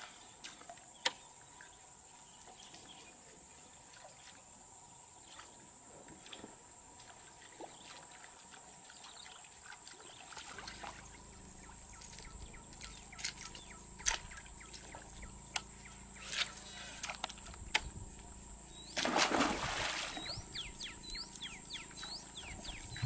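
A toman (giant snakehead) striking a topwater lure, with one loud splash about nineteen seconds in, followed by a run of short high chirps. Before the strike there is only a quiet outdoor background with a steady high whine and scattered light clicks; a low hum comes in about halfway.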